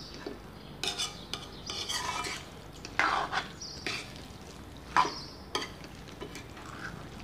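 Long-handled metal spoon stirring thick chicken masala in a metal kadai: a run of irregular scrapes and knocks against the pan, loudest about three and five seconds in.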